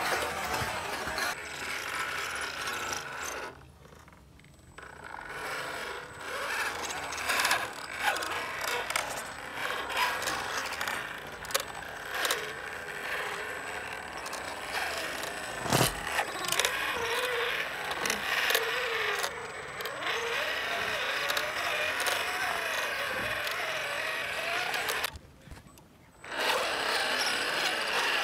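1/12-scale MN86KS RC crawler's electric motor and gears whirring, the whine rising and falling in pitch with the throttle, while its tyres scrape over dirt and stones with many small clicks. The sound drops away for about a second twice, once near the start and once near the end.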